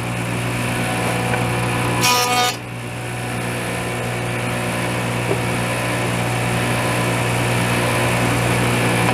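Woodworking jointer running steadily with a low motor hum. A brief louder, harsher stretch comes about two seconds in, then the machine settles back to an even hum.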